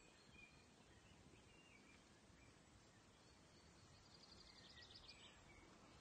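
Faint birdsong: scattered short chirps, then a rapid trill lasting about a second, about four seconds in, over a quiet background hiss.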